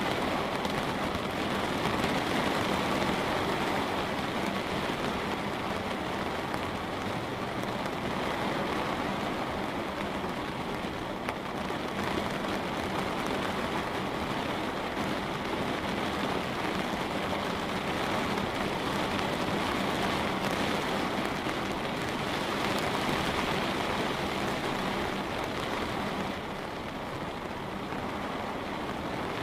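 Steady light rain falling and pattering on a window, an even hiss with no pauses.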